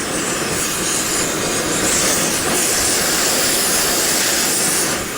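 Gas torch burning with a loud, steady hiss while heating rivets for the mixer's gear ring, dipping briefly near the end.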